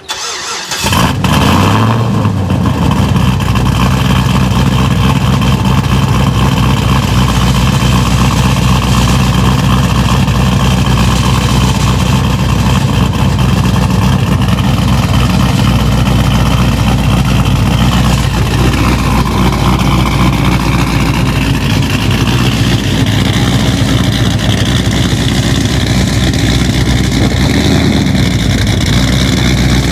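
2007 Chevrolet TrailBlazer SS's 6.0-litre LS2 V8 starting up about a second in with a brief flare, then idling steadily and loudly through its exhaust.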